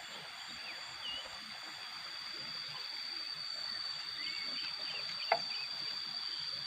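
Outdoor morning ambience: a steady, high insect drone with scattered short bird chirps, and a single sharp click about five seconds in.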